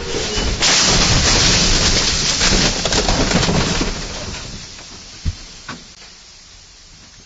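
Crash of a truck into vehicles: a loud, dense clatter of crunching metal, breaking glass and falling debris, strongest for the first few seconds and then dying away, with a single thump about five seconds in.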